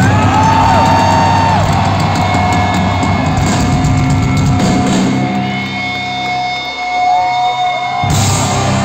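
Rock band playing live in an arena, loud amplified guitars and drums heard from the crowd, with a high held note sliding up and down over it. Past the middle the drums and low end drop away for a couple of seconds, then the full band comes back in sharply near the end.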